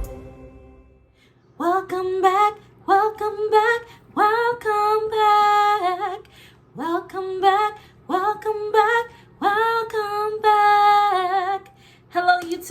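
A woman singing a slow melody unaccompanied, in short phrases with long held, wavering notes, beginning about a second and a half in; a faint steady low hum lies underneath.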